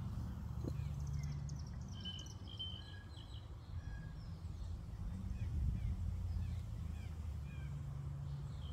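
Small birds chirping and calling faintly, many short scattered notes, over a steady low hum of outdoor background noise.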